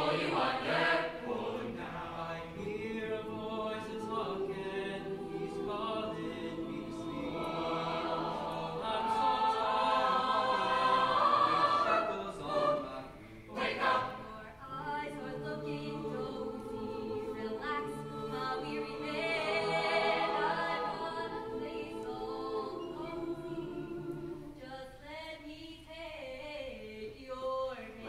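Mixed choir singing a cappella in several parts, with a brief break in the sound about halfway through.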